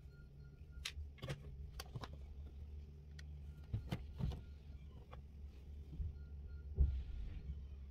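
Scattered clicks and light knocks of makeup being handled: an eyeshadow palette and brush picked up and set to use. A steady low hum runs underneath.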